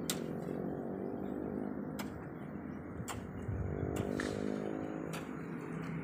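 A low motor hum whose pitch drifts slowly up and down, with sharp clicks roughly once a second.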